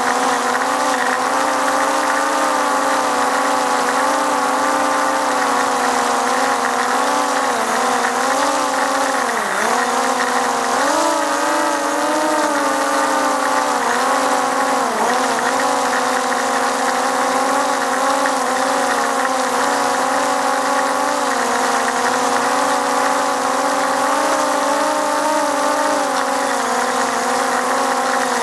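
Multirotor drone's propellers and motors humming steadily in flight, the pitch dipping briefly a few times near the middle as the thrust changes.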